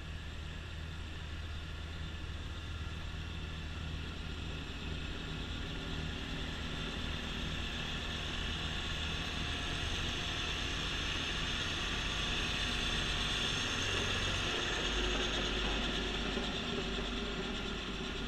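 Kubota B2650 compact tractor's three-cylinder diesel and its front-mounted 2782B snow blower running, the blower's auger and impeller throwing snow with a steady mechanical whir over the engine hum. It grows louder as the tractor comes close, peaking a little past the middle, then eases as it moves away.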